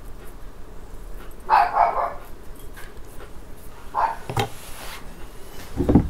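A dog barking: three short barks about two seconds apart.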